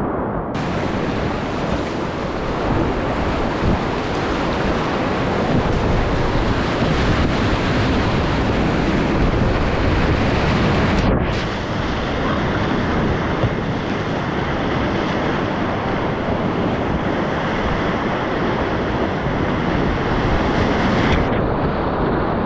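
Whitewater rapid rushing and crashing around a kayak, heard close up from a camera on the boat: a loud, steady churn of foaming water, with spray and water washing over the bow and onto the microphone. The sound changes character abruptly about half a second in and again about 11 seconds in.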